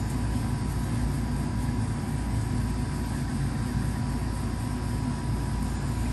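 Steady low background rumble with a faint, thin steady hum on top, unbroken throughout.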